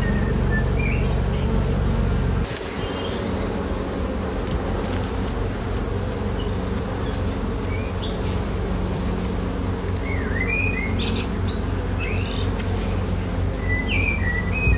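Honeybees buzzing around an open hive: a steady droning hum that eases slightly about two seconds in. Birds chirp now and then, more often in the second half.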